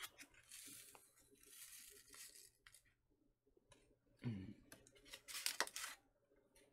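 MRE instant coffee packet being torn open: a faint tear about half a second in lasting a couple of seconds, followed by crinkling and clicks from handling the packaging.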